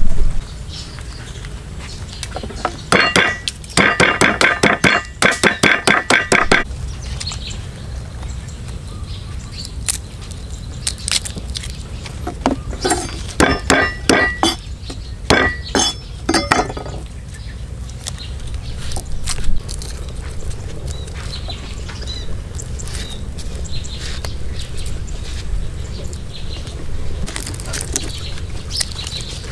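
Cleaver knocking on a thick wooden chopping block as garlic and lemongrass are cut: two runs of quick chops, about five a second for a few seconds each, with single taps between.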